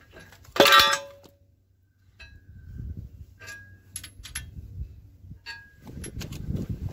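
A single loud metal clang with a ringing tail about half a second in, then lighter clinks and knocks of steel tools and hardware being handled on a log splitter's steel beam.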